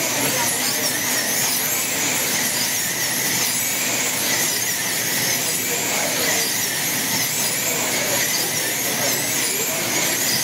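Several wing-class slot cars racing on a multi-lane track, their small electric motors making a high-pitched whine. The whines keep gliding up and down in pitch as the cars accelerate down the straights and brake into the turns.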